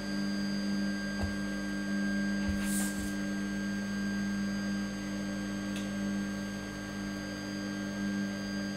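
Steadytech Mini 3D printer's stepper motors and fan humming steadily with a pitched whine as the machine moves its axes to start bed levelling. A few faint knocks and a brief hiss come in the first three seconds.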